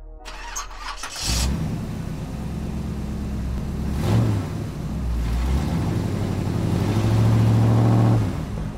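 Car engine running and revving, growing stronger near the end and then dropping away suddenly a little after eight seconds.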